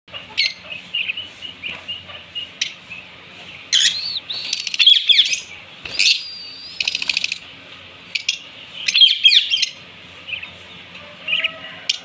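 Lovebirds chirping with sharp, short shrill calls, breaking into bursts of rapid twittering about four and nine seconds in.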